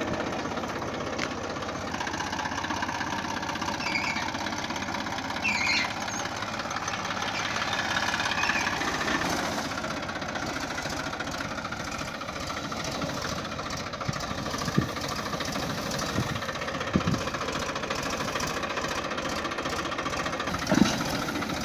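Massey Ferguson 1035 DI tractor's three-cylinder diesel engine running steadily at low speed while it drags a rear-mounted steel clearing bar through a weedy field, with a few short knocks in the last several seconds.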